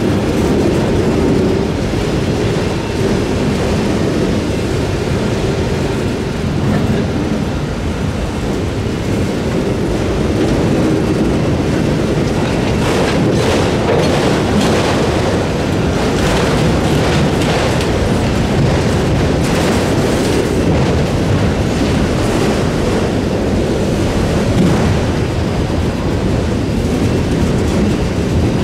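Freight train rolling past at close range: a steady rumble of cars on the rails, with a run of sharp wheel clicks over rail joints in the middle.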